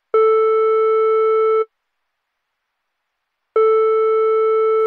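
Telephone ringback tone heard by the caller: two long, steady beeps, each about a second and a half, with about two seconds of silence between them, the call still ringing unanswered.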